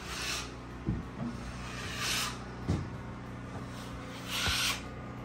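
Drywall knife spreading joint compound over sheetrock: three scraping strokes about two seconds apart, with a few dull knocks between them.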